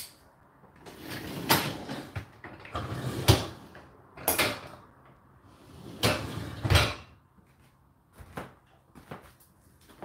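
Whirlpool WFO3P33DLXUK dishwasher racks being pushed back in on their runners: the cutlery tray and upper wire basket slide and rattle with dishes clinking, in four main pushes followed by a few lighter knocks near the end.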